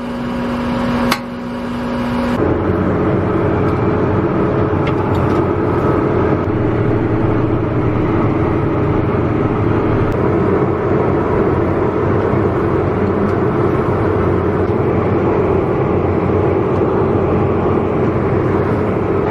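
John Deere tractor's diesel engine running, heard from inside the cab as it tows a pull-type dirt scraper: a loud, steady engine note. In the first two seconds there is a lower idle hum with a sharp click about a second in, as the scraper is hitched.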